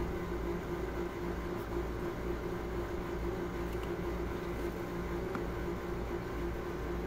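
Steady mechanical hum with a constant low drone and a rumble underneath.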